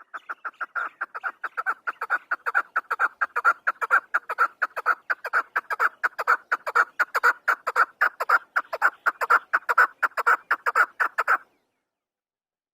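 Chukar partridge (chakor) calling in a fast, even series of short clucking notes, about five a second. The series cuts off suddenly about eleven seconds in.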